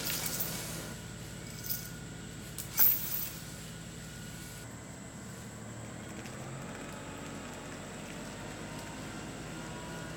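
LS XR3135 compact tractor's engine running steadily, with a few sharp knocks in the first three seconds, the loudest about three seconds in.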